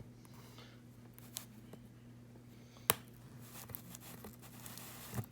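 A taped cardboard package being cut and pried open: faint scraping and small clicks, with one sharp click about three seconds in.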